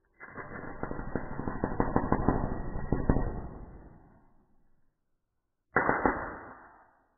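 Crackling electric arc from a home-made salt-water welding rig as the rod is touched to a metal frame. A dense run of sharp crackles lasts about four seconds and fades out, then a second, shorter burst starts about six seconds in.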